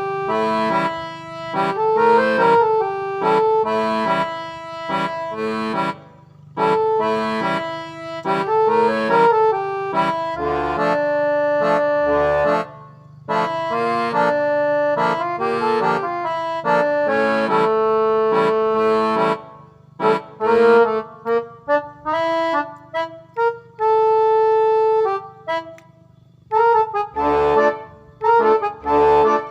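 Instrumental music: a reedy melody played in phrases, with a few short pauses.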